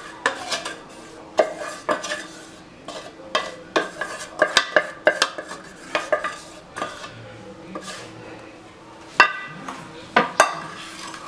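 A wooden-handled spatula scraping and knocking against the inside of a small metal pot as melted chocolate is scraped out: a run of irregular clinks and scrapes, the sharper knocks ringing briefly.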